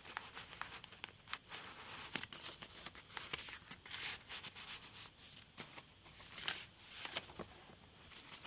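Paper rustling and crinkling as the journal's pages, tucked cards and papers are handled and turned, in faint scattered rustles and ticks with a few louder crinkles.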